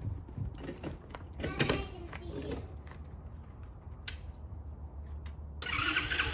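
Lifan 125 single-cylinder engine in a Honda CT70 minibike running at a low idle, with a short rise and fall in pitch about a second and a half in. Near the end a much louder, busier sound cuts in over it.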